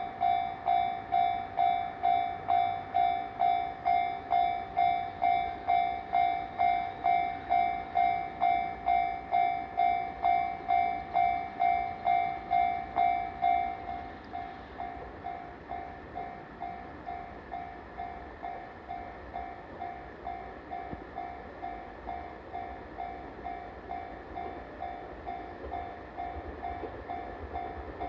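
Japanese level-crossing warning bell ringing in an even electronic clang of about two strokes a second, dropping to a noticeably quieter level about halfway through.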